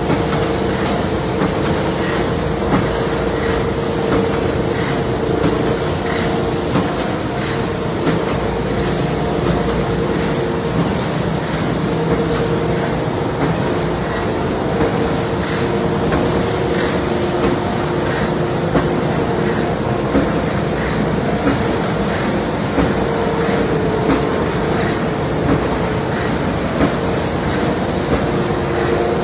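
Industrial machinery running steadily: a constant hum with a held mid-pitched tone and frequent light ticks.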